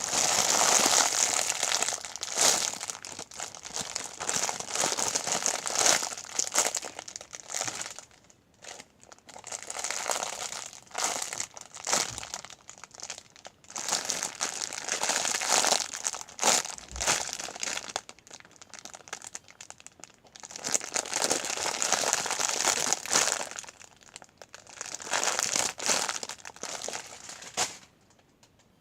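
Thin plastic packaging crinkling in repeated bouts with short pauses, as a foam squishy is pushed into the bag and handled.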